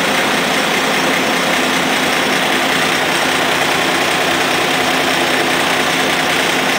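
Cummins diesel engine in a 1930 Moore Speedcrane running steadily, heard close up.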